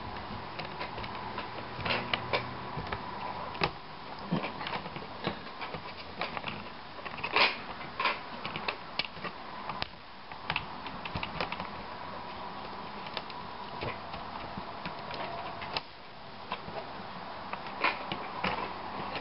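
Irregular small clicks and taps of plastic laptop parts being handled while a replacement screen is fitted into the lid, over a steady faint hum.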